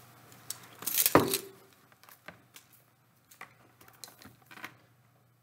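Scattered light clicks and knocks of objects being handled, with a louder rattling clatter about a second in, over a faint steady low hum.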